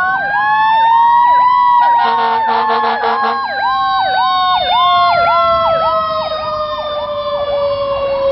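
Fire engine sirens on a code 3 response: an electronic siren yelping over and over, over a siren wail that rises for about a second and a half and then slowly falls. A horn sounds for about a second, about two seconds in.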